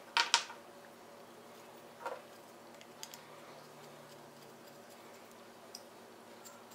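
Small metal clicks and knocks as a steel screwdriver and the cast-iron frog of a Stanley No. 3 hand plane are handled during disassembly: two sharp clicks at the start, a softer knock about two seconds in, then a few faint ticks.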